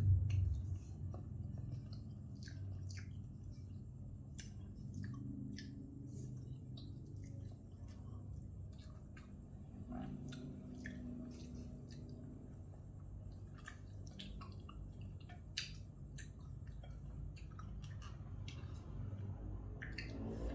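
A person chewing a spicy glass-noodle salad with shrimp and squid, close to the microphone. Short wet mouth clicks and smacks are scattered all through, over a low steady hum.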